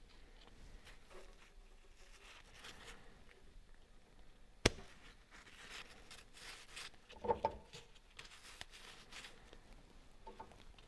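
Faint handling sounds of gloved hands working a small oily drain plug and its new O-ring over a metal drip tray: light rustling, one sharp click about halfway through, and a few soft knocks a couple of seconds later.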